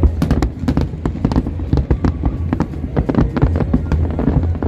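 Aerial fireworks exploding in a rapid, irregular string of bangs and crackles, several a second, over a steady low rumble.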